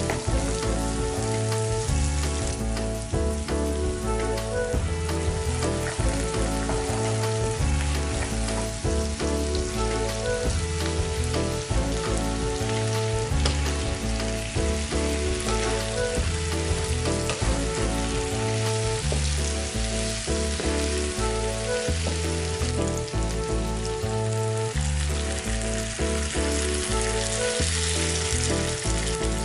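Onions, bell pepper and then chicken wings sizzling in oil in a nonstick frying pan as they are stirred with a spatula. Near the end, water is poured into the hot pan and the sizzling grows brighter. Background music with low notes plays underneath.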